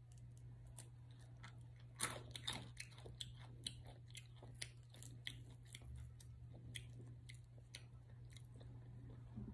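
Close-up chewing and biting of a fried chicken wing, with short crisp crunches, a cluster of them loudest about two seconds in, then scattered bites and mouth clicks. A faint steady low hum runs underneath.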